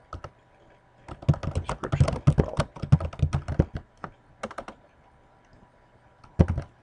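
Typing on a computer keyboard: bursts of rapid keystrokes, then a pause of about a second and a half before a last few keys near the end.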